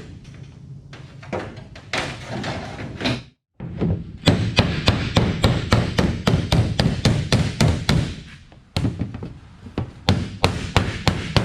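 Repeated hammer blows on metal in quick succession, about four a second, in two runs with a short let-up between them.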